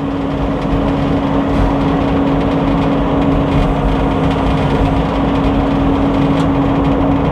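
Sawmill engine running steadily, with a steady, even hum and no cutting or knocks.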